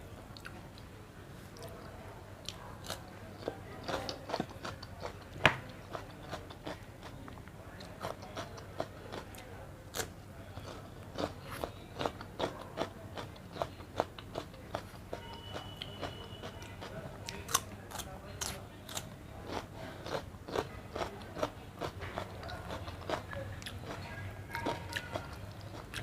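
Close-miked mouth sounds of a person eating a meal of egg curry and rice: irregular chewing and biting, with small crunchy snaps, one louder crunch about five seconds in.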